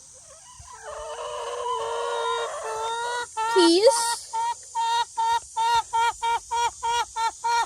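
Chickens yelling: a drawn-out squawking call that builds louder, then a run of repeated loud squawks at about three a second.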